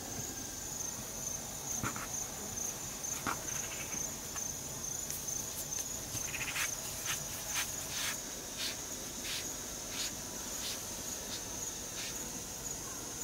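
Steady high-pitched insect chirring. From about five seconds in until near the end there is a series of about a dozen light taps, roughly one every half second to second.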